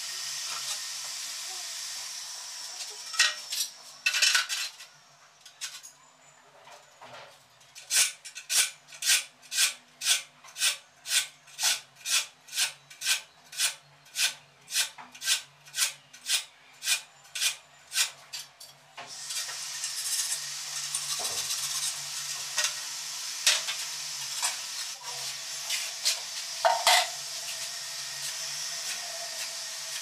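Rhythmic scraping of a ceramic tile being rubbed back and forth, about two strokes a second for roughly ten seconds. A steady hiss follows, with a few sharp knocks later as tiles are tapped against the wall.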